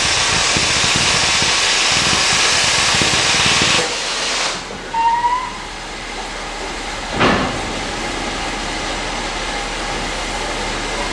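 Stanier Black Five steam locomotive No. 5305 standing with its safety valves blowing off: a loud steady hiss of steam that cuts off about four seconds in as the valves reseat. A short, quieter burst of escaping steam follows about seven seconds in.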